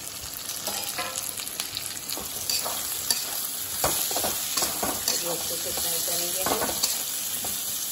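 Chopped onions and green capsicum sizzling in hot oil in a kadhai, stirred with a flat metal spatula that scrapes and knocks against the pan again and again over a steady frying hiss.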